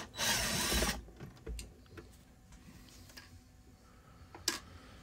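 Cordless drill-driver on a long extension running for about a second, backing a screw out of the amp cabinet's front plate. Then small handling clicks, with a sharper click near the end as a screw is dropped into a plastic parts dish.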